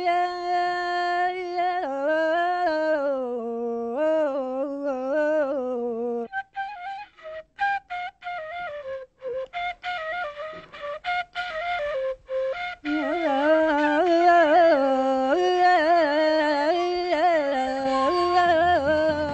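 Boğaz çalma, Turkish folk throat-playing: a woman makes a flute-like melody in her throat, her hand pressed against it, with a man playing along on a short wooden flute. The ornamented tune runs smoothly, breaks into short choppy notes from about six seconds in, and comes back fuller after about thirteen seconds.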